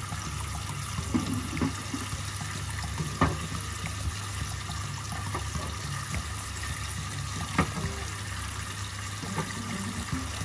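Kitchen tap running steadily into a stainless steel sink as fresh eggs are rinsed under it, with a few sharp clicks as washed eggs are set down among the others, the loudest about three seconds in and again near eight seconds.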